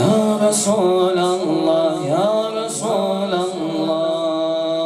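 A man's solo voice chanting a devotional welcome refrain to the Prophet, stretching the last syllables into long held notes that waver and bend in pitch, and slowly growing quieter.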